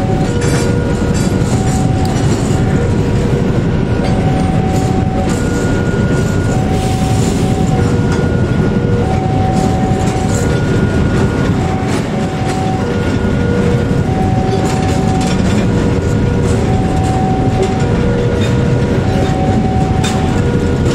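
Empty container flat wagons rolling slowly past, a steady rumble of steel wheels on rail with scattered clicks. Over it a two-tone warning chime alternates about once a second, typical of a level-crossing alarm.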